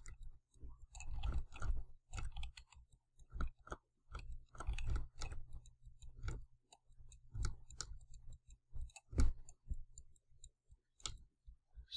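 Computer mouse clicking and being handled, a scatter of short, irregular clicks, over a faint low steady hum.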